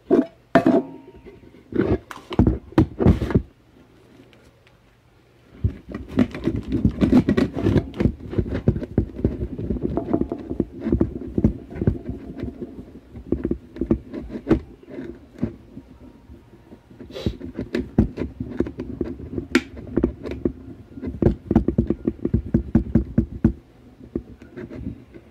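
Hands rubbing and handling the polished metal housing of a Kirby Heritage vacuum cleaner close to the microphone. A few separate knocks come in the first few seconds, then dense, irregular scuffing and light knocks from about six seconds in.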